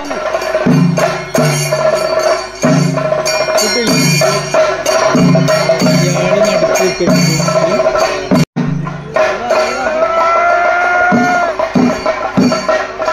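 Kerala temple ritual percussion: chenda drums struck in a repeated pattern with small hand cymbals clashing, over a steady held tone.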